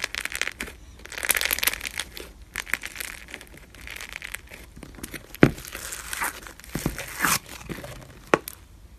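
Foam-bead slime (floam) crackling and crunching as fingers press and knead into it, in repeated bursts with a few sharp pops.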